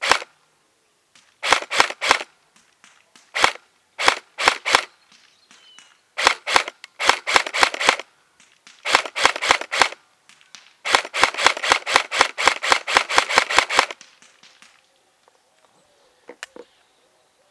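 Custom SPR Mk12 airsoft electric rifle firing BBs, with BB impacts on a cardboard target at about 60–65 m. Sharp clicks in quick strings, the longest a run of about six a second a little past the middle, with a few fainter clicks near the end.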